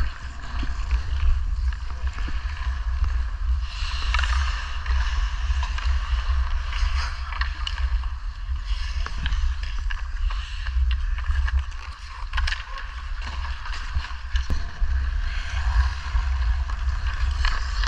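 Ice skate blades scraping and carving across outdoor rink ice, a steady hiss, with a low rumble on the body-worn camera's microphone and a few sharp clacks of sticks or puck.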